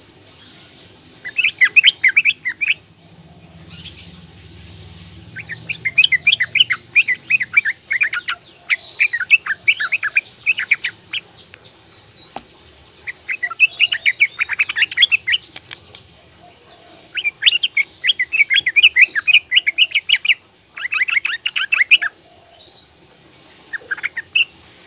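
Young female yellow-vented bulbul (trucukan) calling in fast runs of short chirps, about six bouts of one to a few seconds each, separated by short pauses.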